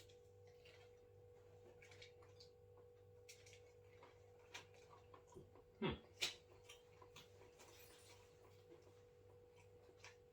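Faint sounds of a person chewing a bite of a chicken burger: scattered small mouth clicks and smacks. A short falling sound and a sharper click about six seconds in are the loudest moments. A faint steady hum lies under it all.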